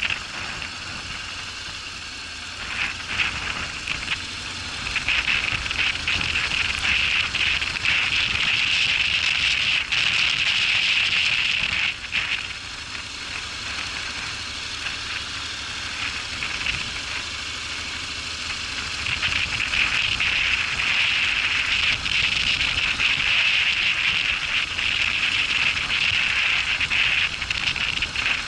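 A Honda NC750X DCT ridden off-road, heard as a steady crackling hiss of tyres on loose ground with wind on the microphone. It grows louder a few seconds in, eases off near the middle and rises again in the second half.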